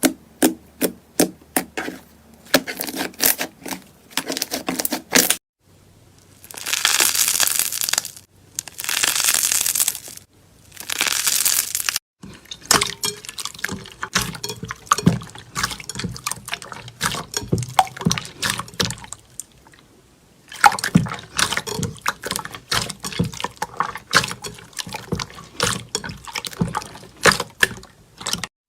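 Slime being squished and stretched by hand, making sharp pops and crackles. About six seconds in come three longer hissing stretches, each a second or two long, and then dense crackling resumes.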